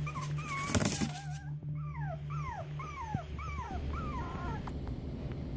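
Puppy whining: wavering high-pitched whimpers, then a run of about five short whimpers, each falling in pitch, about two a second. A brief louder noisy burst comes just before a second in.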